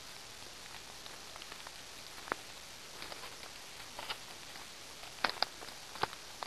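Footsteps crunching through dry leaf litter in scattered irregular clicks over a faint steady hiss, with a few sharper snaps in the second half.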